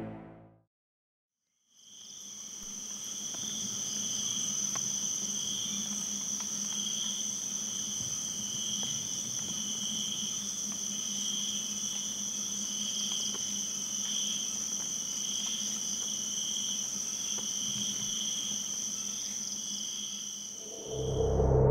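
Insects trilling steadily at a high pitch, a continuous night-time chorus that starts about two seconds in after a brief silence.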